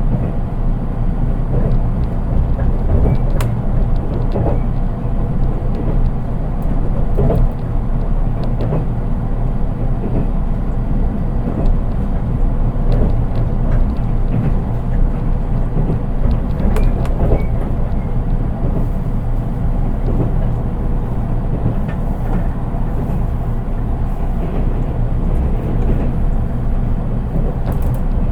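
Running noise inside a JR East 183 series electric train, heard in its unpowered KuHa driving trailer car, with no motor sound: a steady low rumble of wheels on rail, broken by scattered short clicks.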